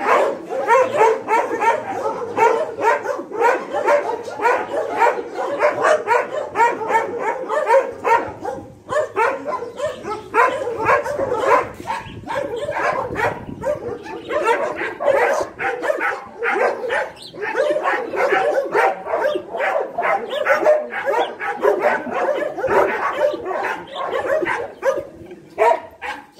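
Dogs barking over and over in quick, excited play barks, several a second with only brief lulls.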